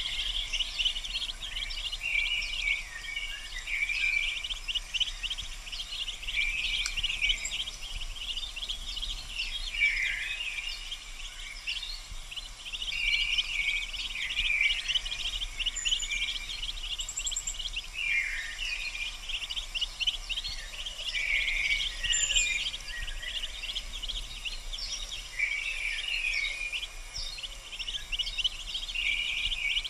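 Mallard ducklings peeping, many quick high cheeps overlapping without a break, with now and then a falling note.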